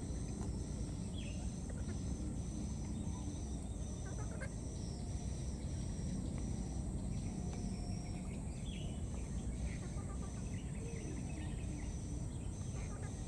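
Outdoor ambience: a steady low rumble under a high chirp that repeats about twice a second, with a few short, faint calls now and then.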